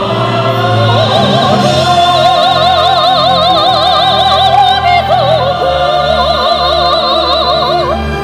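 A female soprano singing in a bel canto style with wide vibrato, holding two long notes, the second beginning about five seconds in. A symphony orchestra plays steady accompaniment underneath.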